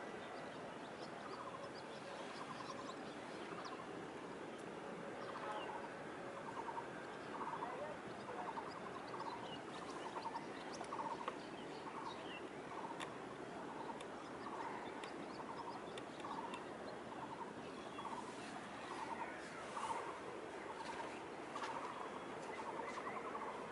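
A bird calling near the microphone: short rattling calls repeated roughly once a second, over a steady outdoor background hiss.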